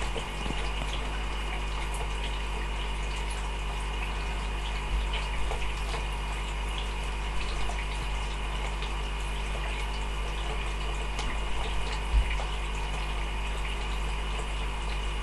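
Steady running of aquarium equipment: water trickling and a pump humming with a low drone. A few faint knocks, the strongest a low bump about twelve seconds in.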